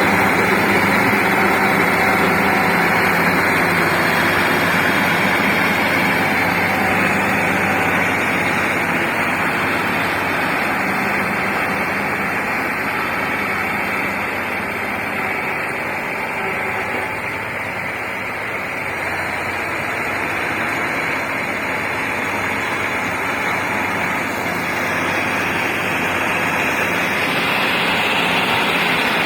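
Heavy-equipment diesel engine running steadily under load, easing off slightly about two-thirds of the way through and then building again.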